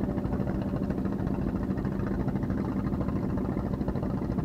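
An engine running steadily: a low, even hum with a fast throb that does not change.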